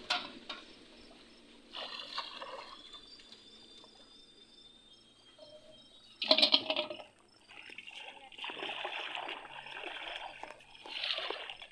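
Pond water splashing and trickling as someone wades in it and works with their hands. The loudest splash comes a little past the middle, followed by a longer run of splashing near the end.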